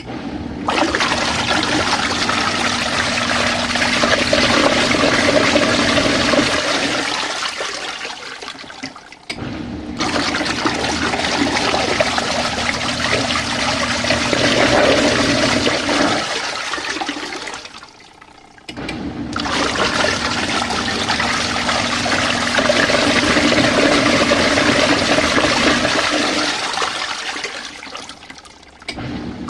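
Small RV washing machine on a hot-water wash cycle: water churning in the tub over a steady motor hum. It stops briefly about every nine seconds, typical of the washer's wash action reversing, and the churning fades out near the end.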